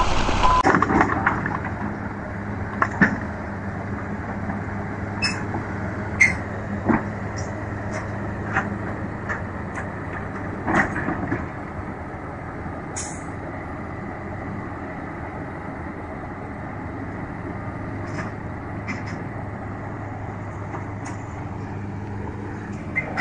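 Heavy diesel machinery running steadily, a low drone, with scattered sharp knocks and metal clanks.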